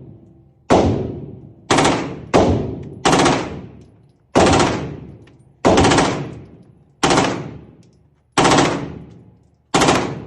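9mm AR-15 fired on full auto in short bursts, about nine of them a second or so apart, each ending in a long echo that fades away.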